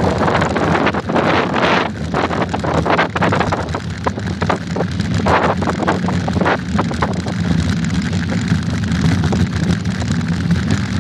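Wind buffeting a handlebar-mounted phone's microphone while a mountain bike rolls along a rough dirt road, with a steady low rumble of tyres on dirt and frequent short knocks and rattles as the bike jolts over bumps, most of them in the first half.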